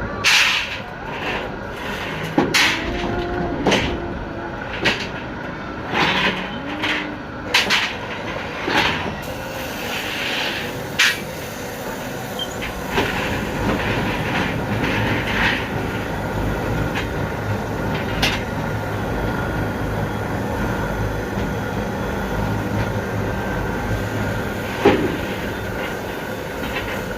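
Rebar ring-bending machine at work: sharp irregular metal clanks and clicks, thickest in the first third, over a steady machine hum, with a louder clank near the end.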